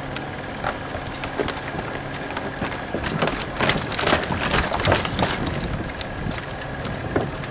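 Wooden knocks and clatter of oars and gear in a rowing boat, a few scattered knocks building to a dense flurry in the middle few seconds, over a steady low hum.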